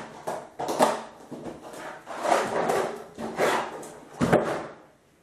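Plastic handling noises: crinkling plastic floor sheeting and a clear plastic storage tub being moved and slid across the floor, a series of rustling scrapes with a sharp knock about four seconds in.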